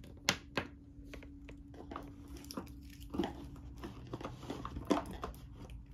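Plastic dry-erase markers being set down and arranged on a cardboard game board, giving a scattering of light clicks and taps.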